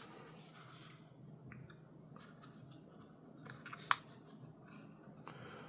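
Small handling noises of unboxing: crinkling and rustling of packaging, with one sharp click about four seconds in, over a faint steady low hum.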